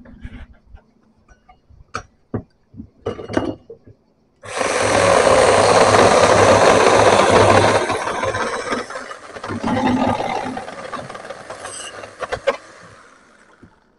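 A few handling clicks and knocks, then an electric power tool switches on about four seconds in and runs loudly with a steady motor hum under a harsh rushing noise. After a few seconds it switches off and winds down, fading out near the end.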